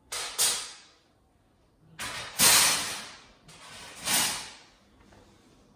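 Three rough scraping, sliding noises, each about a second long, as a small piece of the TV's sheet metal is handled and slid about.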